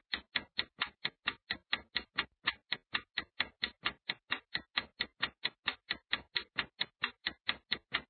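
Countdown timer sound effect: steady, even clock-like ticking, about five ticks a second.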